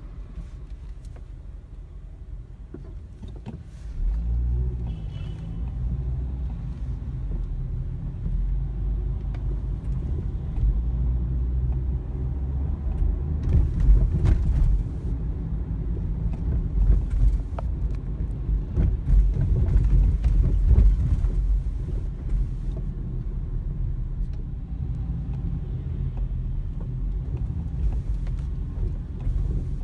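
Low rumble of a Hyundai ix35 / Kia Sportage on the move, with scattered knocks and rattles that step up about four seconds in and are busiest in the middle. The knocks come from the steering, the electric power steering unit and steering shaft, a common fault on these cars.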